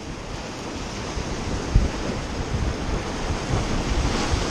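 Ocean waves surging in, with wind buffeting the microphone; the wash grows gradually louder.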